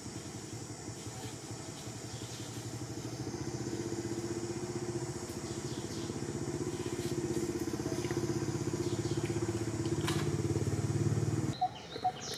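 A motor engine runs steadily with a low drone and grows louder over the first few seconds. It cuts off abruptly near the end, leaving a few clicks and short high chirps.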